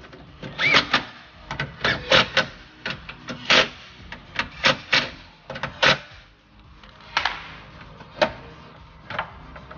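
Snap-on cordless electric impact gun run in short bursts, tightening the window regulator motor's bolts, giving sharp irregular clicks and knocks.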